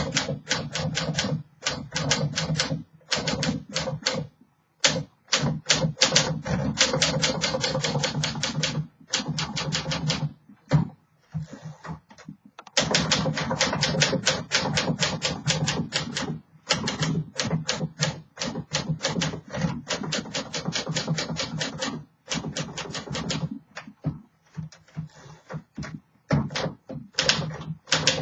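1951 Smith Corona Silent manual typewriter being typed on at a steady clip: fast runs of key strikes with short pauses between words and lines. The typewriter is freshly refurbished and in working order.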